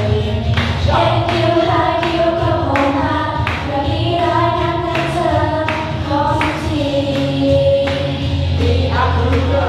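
Several young women singing a Thai pop song together into microphones over a backing track with a steady beat.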